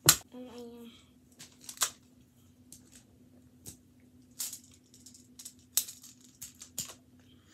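Plastic magnetic building tiles clicking and clacking as they are snapped together and set down: a loud click right at the start, then about eight lighter clicks spread out, some in quick pairs.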